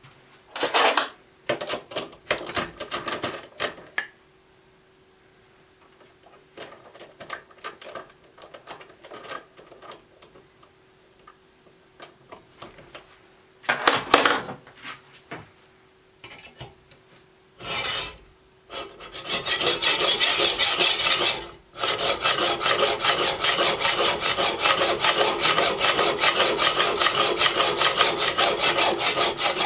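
Hacksaw sawing off the chucking piece from a part held in a lathe chuck, a steady run of strokes starting about two-thirds of the way in with a brief pause soon after. Before that, scattered clicks and knocks of parts being handled on the lathe.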